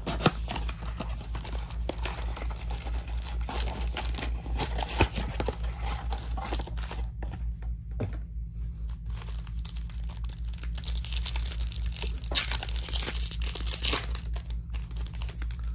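Trading card packaging being handled and opened: a cardboard blaster box opened and its foil-wrapped packs crinkling in the hands, then a foil card pack torn open and crinkling loudest near the end. A steady low hum runs underneath.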